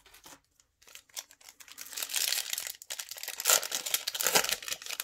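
Foil trading-card booster-pack wrapper crinkling and tearing in the hands as it is opened: a few light taps at first, then a dense, crackly rustle from about a second and a half in, loudest near the end.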